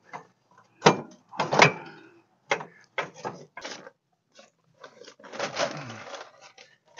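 Metal exhaust headers knocking and clunking against the truck's frame and underbody as they are wiggled up into place, in irregular knocks with a longer rattling scrape about five seconds in.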